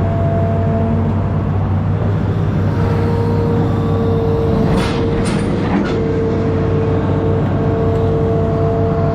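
Amphibious excavator's diesel engine running steadily, with a constant whine over the engine drone. Three brief sharp noises come close together about five seconds in.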